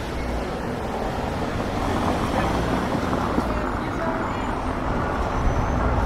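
City street ambience: road traffic running by with indistinct voices of passers-by, the traffic noise swelling slightly about two seconds in.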